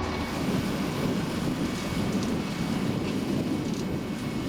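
Vermeer ZR5 1200 self-propelled baler running, with wind noise rushing over the microphone.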